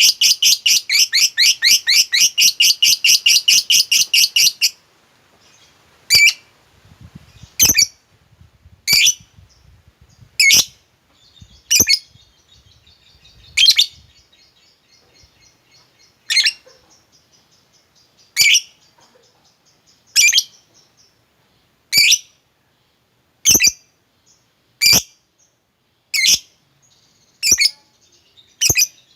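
Lovebird giving a fast, continuous chattering trill of rapid high chirps that breaks off about five seconds in. After that it calls in single sharp chirps, roughly one every one and a half seconds.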